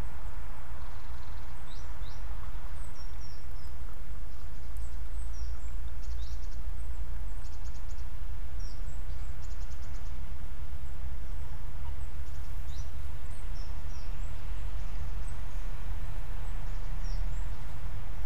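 Small woodland birds chirping and calling over a steady low rumble: many short high chirps, with a few quick rattling trills in the middle stretch.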